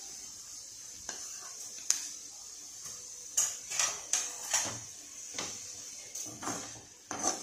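A spoon scraping and clattering in a cooking pan as a banana-stem stir-fry is stirred, with grated coconut being mixed in. The strokes are short and irregular, about one or two a second.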